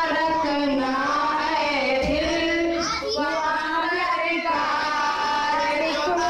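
A girl singing an Urdu naat (Islamic devotional song) into a microphone, drawing out long, wavering notes.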